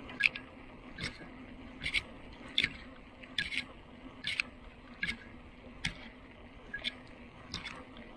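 Bicycle being ridden, with a sharp click about once a second, sometimes two close together, over a steady low hum.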